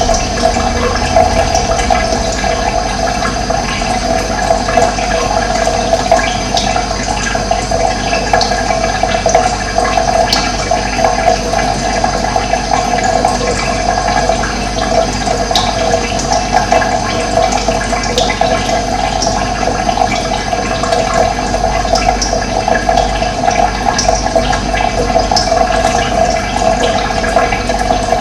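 Steady rush of running water, with brief faint bird chirps now and then.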